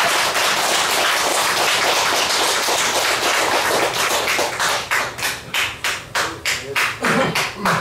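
Audience applause. It is dense at first, then thins about four and a half seconds in to scattered single claps, roughly three a second, that die away just before the end.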